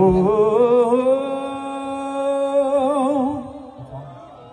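A singer holds one long sung note through the PA during a band's sound check. The voice slides up into the note, holds it steady, wavers into vibrato near the end, and fades out about three and a half seconds in.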